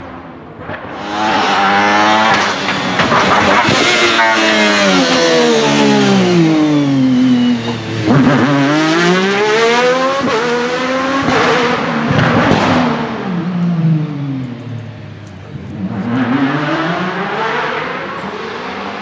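1996 Alfa Romeo 155 V6 TI DTM race car's V6 engine driven hard. Its pitch falls over several seconds, climbs again about eight seconds in, falls once more and rises near the end.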